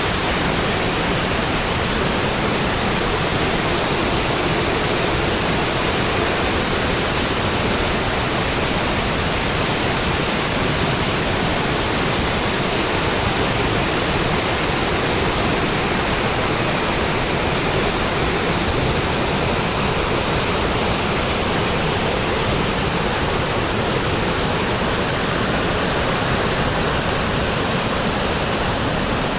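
Waterfall: a loud, steady rush of falling water with no let-up.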